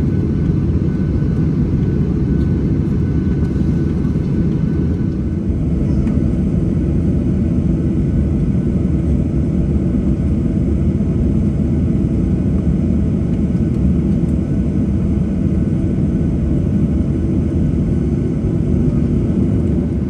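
Cabin noise of a Boeing 737-800 with its CFM56 jet engines running: a steady, loud, low rumble heard from inside the passenger cabin.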